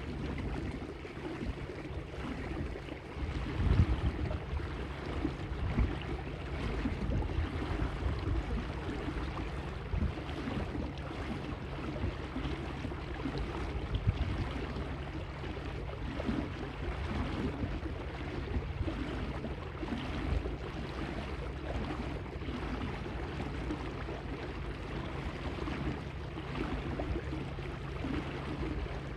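Water splashing and lapping against the hull of a small electric boat running over choppy water, with a faint steady low hum underneath. Wind gusts rumble on the microphone, strongest about four seconds in.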